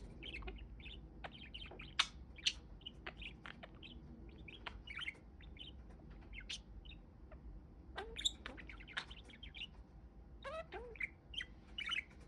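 Pet budgerigar (budgie) chattering: short chirps, sharp clicks and warbling. There is a sparser spell in the middle, and the chatter gets busier again in the last few seconds.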